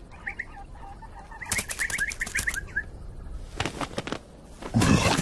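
Cartoon sound effects of a small bird: runs of short, quick high chirps with rapid wing flutters as it flies in and lands. A louder, low sound comes in near the end.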